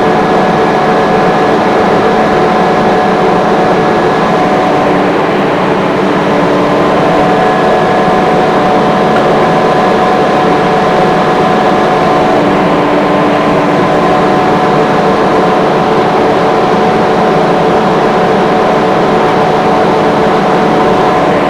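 Rotary screw air compressor running: a loud, steady machine drone with several steady whining tones on top, a few of which fade in and out or shift slightly in pitch.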